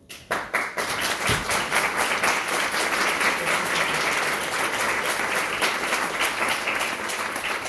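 Audience clapping, starting suddenly just after the start and continuing steadily, then dying away at the end.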